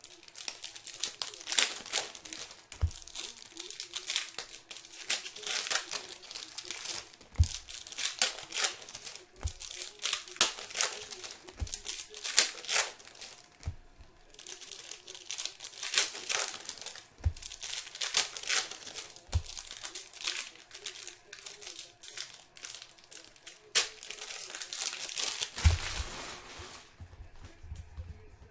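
Foil trading-card pack wrappers being torn open and crinkled, in repeated spells of rustling, with occasional short soft knocks.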